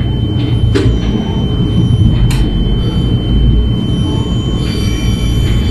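Stadler GTW diesel-electric commuter railcar heard from inside while it runs: a steady low rumble from the wheels and running gear, two sharp clicks, and high-pitched wheel squeal setting in about four and a half seconds in.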